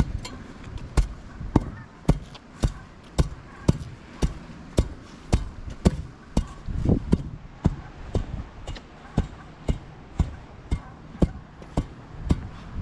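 Steady, evenly spaced knocks, about two a second.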